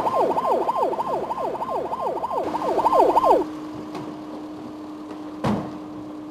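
Police car siren in a fast repeating yelp, about three rising sweeps a second, cutting off about three and a half seconds in. A steady low hum stays on after it, and a single thump comes near the end.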